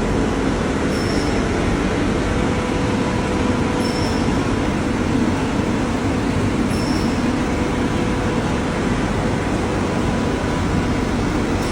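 Steady machine noise with a constant hum, and a faint short high chirp about every three seconds.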